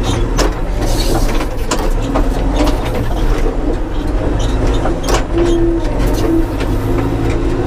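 John Deere 310SE backhoe loader's diesel engine running as the 4-in-1 front bucket loads a cedar log, with repeated knocks and clunks of log and steel. A brief whine comes a little past halfway.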